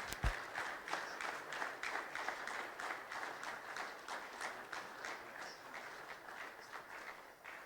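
Audience applauding, the clapping gradually fading away and stopping near the end.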